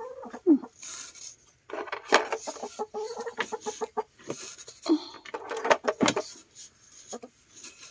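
Domestic hens clucking in a few short bouts, with light knocks as eggs are lifted out of a straw-lined nest bucket.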